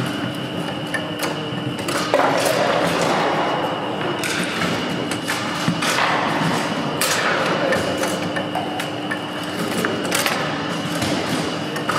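Table football in play: irregular sharp clacks and knocks as the ball is struck by the plastic figures and bangs against the table walls, with rods sliding and knocking.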